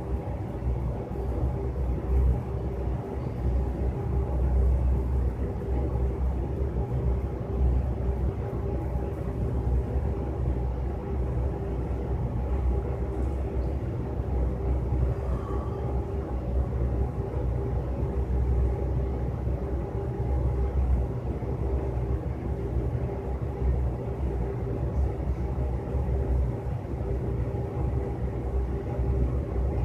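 Steady low mechanical rumble and hum with a few constant tones, unchanging throughout.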